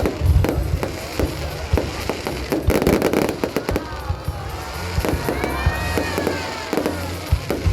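Fireworks display: many sharp bangs and crackling pops in quick succession, with a few whistling glides that rise and fall about five to six seconds in.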